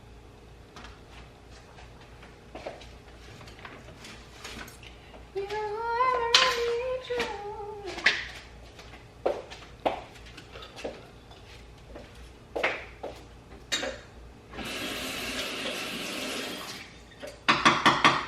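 Kitchen sounds of a spatula working at French toast stuck in a hot pan: scattered clicks and scrapes of metal on the pan. A person hums a few wavering notes about five seconds in, and there is a couple of seconds of steady hiss a little before the end.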